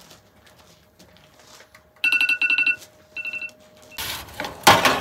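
Phone timer alarm going off: rapid electronic beeps in two short bursts, signalling that the baking time is up. Near the end comes a loud scrape as a metal peel slides under the buns on the floor of the compact camping pizza oven.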